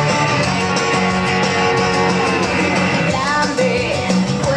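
Dance music with guitar and a steady beat, a singing voice coming in about three seconds in.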